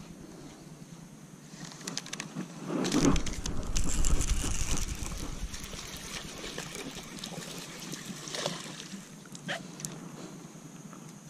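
A hooked bass splashing at the water's surface as it is fought and reeled in, loudest a few seconds in, over wind and handling noise on the microphone; a couple of sharp knocks near the end.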